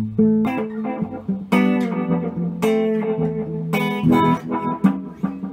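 Electric guitar played through an Elk EM-4 tape echo machine set to its second echo position: a picked note or chord struck about once a second, each one ringing on.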